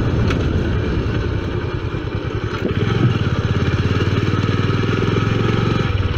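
Motorcycle engine running under way, a fast even train of exhaust pulses. About halfway through the engine note gets louder and settles into a steadier drone.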